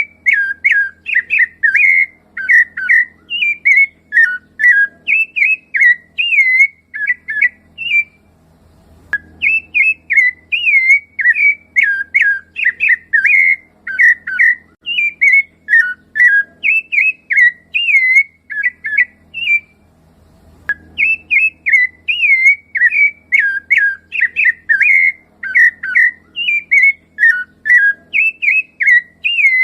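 Rufous-bellied thrush (sabiá-laranjeira) singing: a steady run of fluting, whistled phrases, broken by short pauses about eight and about twenty seconds in.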